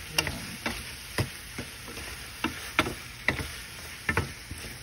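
Sliced mushrooms, bell peppers and onions sizzling in a stainless steel skillet as they are stir-fried, with a utensil clicking and scraping against the pan at uneven intervals, about a dozen times.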